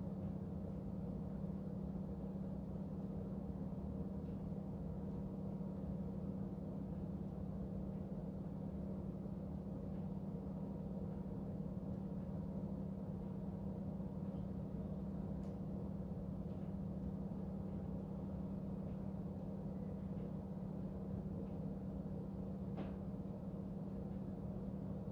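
A steady low hum over faint, even background noise, with a few soft clicks.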